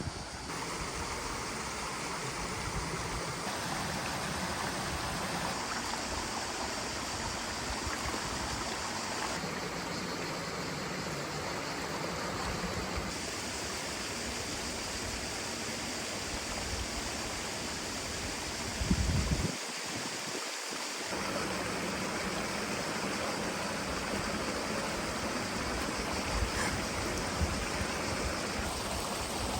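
Mountain river rushing steadily over rocks, an even watery hiss. About two-thirds through, a brief low bump breaks in.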